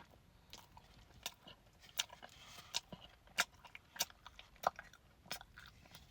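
Someone chewing butter coated in frosting with the mouth open: wet smacking clicks, roughly one every two-thirds of a second.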